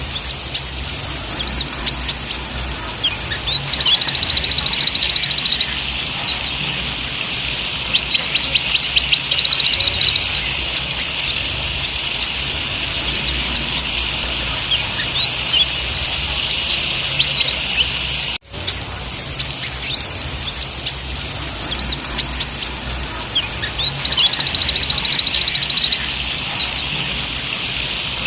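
Olive-backed sunbird (kolibri ninja) song: many short, high chirps and bouts of rapid, high trilling lasting a few seconds each. The song is a looped recording; it cuts out for an instant about 18 seconds in, then starts over.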